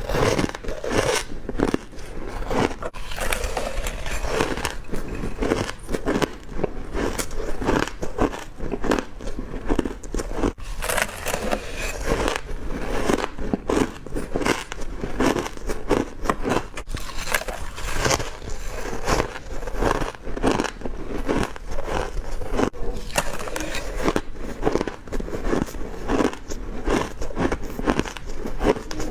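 A person biting into hard crushed ice, close to the microphone: a continuous run of irregular sharp crunches, several a second.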